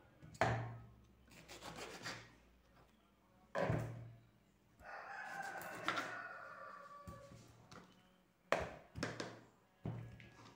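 Kitchen knife cutting lemons on a plastic cutting board: sharp knocks of the blade striking the board, a few seconds apart, with two close together near the end. Midway there is a drawn-out, wavering call lasting about two seconds.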